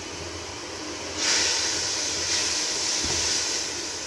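Grated boiled potatoes sizzling in hot oil and fried spice masala in a pot. The sizzle grows louder about a second in as they are stirred with a spatula.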